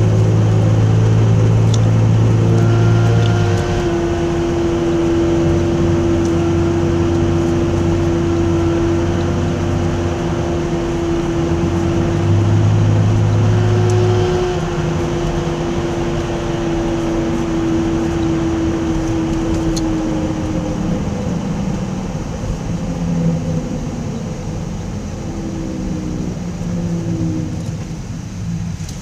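Loud droning whine from the rear axle of a 2002 Nissan Frontier pickup at about 35 mph, heard from inside the cab over the road noise. It holds steady and eases off about twenty seconds in. The owner calls it terribly bad and takes it for a bad rear differential.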